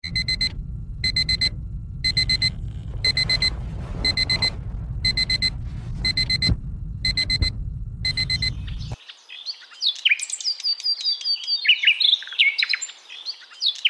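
Electronic alarm clock beeping in half-second bursts about once a second, over a low steady rumble. About nine seconds in, the beeping and rumble stop and birds start chirping.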